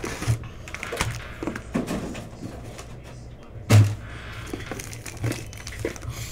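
Hands handling foil-wrapped trading-card packs and their cardboard box, with soft rustles and light knocks as the packs are pulled out and stacked on a table. A sharp thump comes a little under four seconds in.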